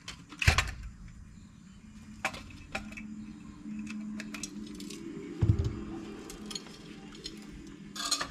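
Wire cutters snipping the stiff, fried old wiring inside a Lionel 318 standard gauge locomotive, with small metallic clicks and clinks of tools and parts; the loudest click comes about half a second in and a duller knock a little past halfway.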